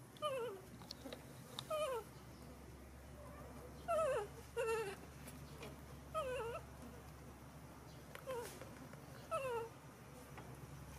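Young macaque whimpering: short, high, falling cries, repeated every second or two.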